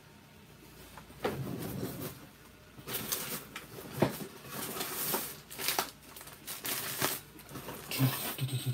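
Handling noise: rustling and crinkling with several sharp clicks and taps, starting about a second in.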